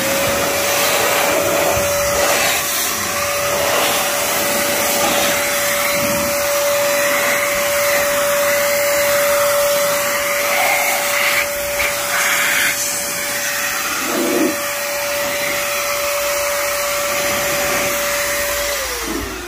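Big Boi car dryer, an electric blower, running loud: a steady whine over a rush of air as it blows water off a washed car. It spins up at the start and winds down just before the end.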